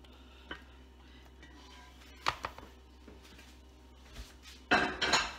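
Silicone spatula scraping and knocking against a metal cooking pot as cooked bowtie pasta is emptied into a colander: a few light knocks, then a louder clatter near the end.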